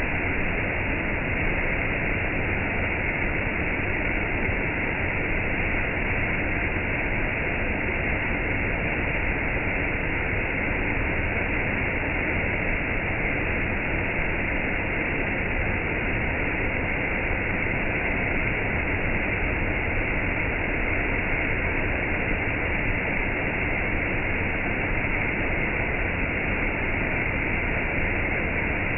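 Steady, unbroken rush of water from a stream pouring over a small waterfall.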